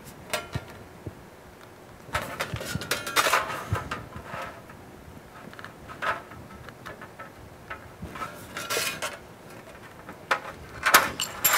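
Aviation snips cutting notches into galvanized sheet steel: several spells of quick, sharp metallic snips with short pauses between.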